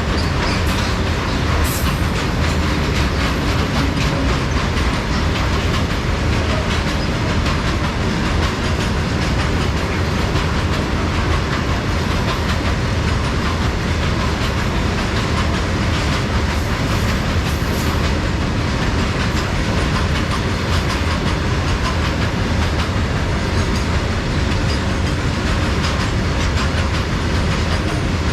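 Loaded coal wagons of a freight train rolling past at speed: a loud, steady rumble and rush of steel wheels on the rails, with light ticking over the rail joints, unbroken throughout.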